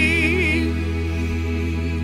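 End of a gospel song: a final held note with vibrato dies away about half a second in, leaving the backing track's sustained chord slowly fading.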